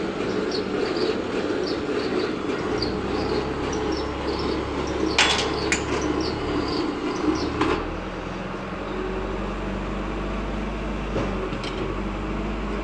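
Steady mechanical hum that drops to a lower hum about eight seconds in, with a short high chirp repeating two to three times a second through the first half and a few sharp clicks around five and seven and a half seconds in.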